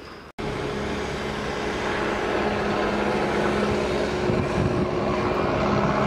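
Toyota Innova Crysta's 2.4-litre diesel engine running close by, a steady low hum over broad noise that grows slightly louder as the SUV moves off. The sound cuts in abruptly after a brief dropout about a third of a second in.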